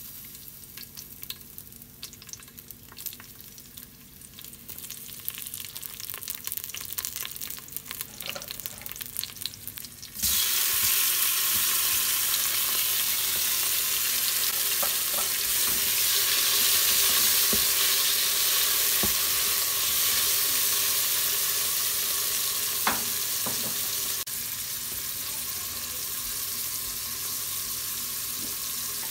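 Tempering seeds and garlic crackling and popping in hot oil in an Instant Pot's stainless steel inner pot. About ten seconds in, chopped tomatoes go in and a loud, steady sizzle takes over, with a spatula stirring and knocking against the pot.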